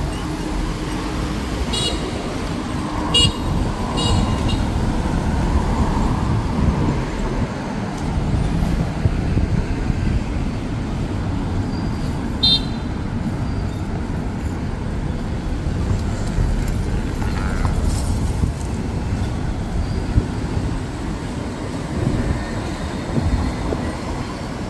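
Steady road traffic rumble of passing vehicles, with a few short high-pitched horn toots about two, three and four seconds in and once more around twelve seconds.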